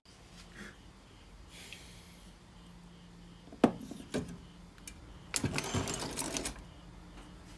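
Handling noises as a transformer and a toroidal choke are lifted out of an inverter chassis onto a workbench: a sharp knock about halfway in, a lighter knock just after, then about a second of clattering and rattling.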